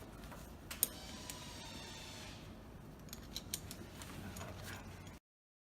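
Light clicks and a faint rasping slide of a tie-down strap being worked through its buckle, cutting off suddenly about five seconds in.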